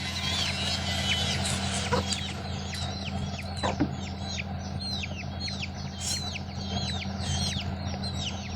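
Chickens peeping: a steady string of short, high, falling peeps, several a second, over a constant low hum, with a few sharp clicks.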